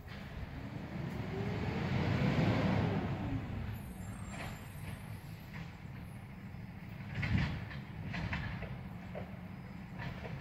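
A passing vehicle: a broad rumble swells to a peak about two to three seconds in and fades, with a faint tone that rises and then falls. A few short knocks follow, the loudest about seven seconds in.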